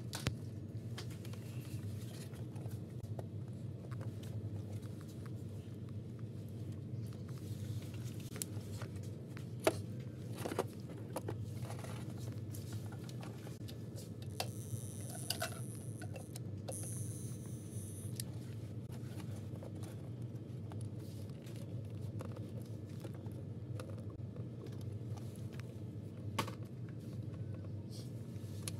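Steady low room hum with scattered small clicks, taps and rustles from hands handling wires and circuit boards being hot-glued into place.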